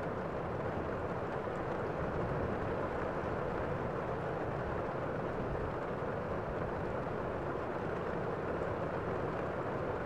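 Small waterfall cascading over rocks into a pool: a steady, unbroken rush of falling water, deep and full with little high hiss.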